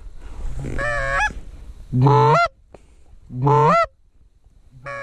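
Loud Canada goose honking: about four calls, each a short low note breaking up into a higher honk.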